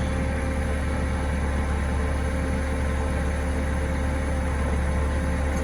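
Forklift engine running steadily, a constant low drone with steady tones above it.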